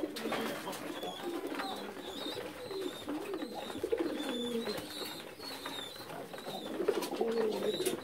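Fancy pigeons cooing: low coos that swoop up and down in pitch, loudest about halfway through and again near the end, over a run of thin high chirps.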